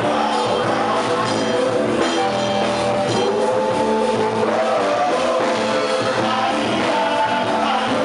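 Music from a band with a singer, running at a steady level.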